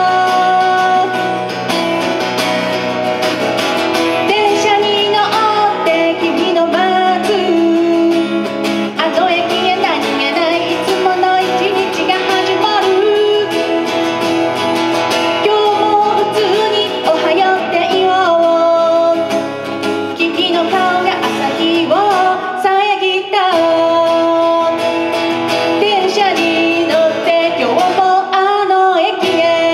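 A woman singing a song while accompanying herself on acoustic guitar, with long held notes over the guitar chords.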